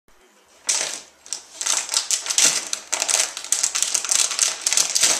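Rapid, irregular crinkling and rustling as a corgi bites, paws and shakes a crumpled white piece of paper, starting about a second in.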